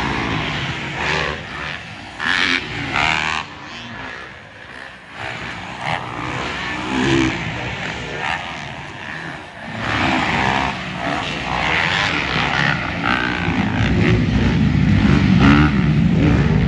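Motocross dirt bike engines revving hard and easing off, rising and falling in pitch. They fade around four to six seconds in, then build again and are loudest near the end.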